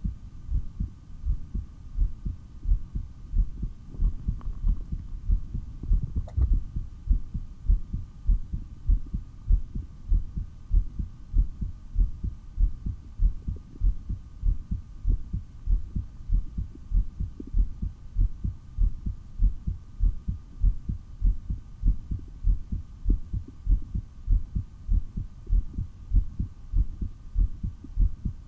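A human heartbeat heard through a stethoscope: a steady, even run of low, pounding lub-dub beats, during a long breath hold.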